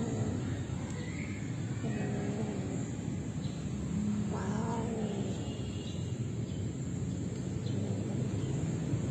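Cats yowling while mating: a short drawn-out call about two seconds in, then a louder wavering yowl that rises and falls about four seconds in, over a steady low background rumble.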